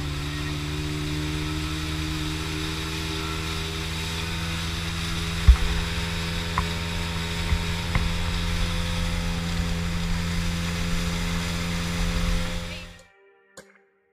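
Boat underway at speed: the outboard motor's steady hum under a rush of wind and water, with a few low thumps. It cuts off abruptly about 13 seconds in.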